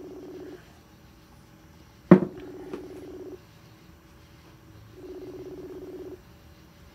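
Facebook Messenger outgoing-call ringing tone, heard over the phone's speaker: a low, pulsing tone about a second long that repeats every two to three seconds while the call goes unanswered. A sharp, loud click comes about two seconds in.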